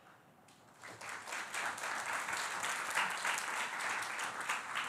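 Audience applauding, starting about a second in.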